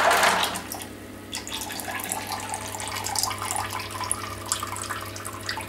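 Fermenting plum wine must poured from a plastic drum into a bucket through a hand sieve. A rush of pouring liquid dies away about half a second in, followed by small splashes and drips.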